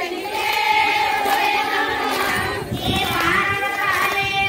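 Group of women singing a kummi folk song together, with handclaps keeping time.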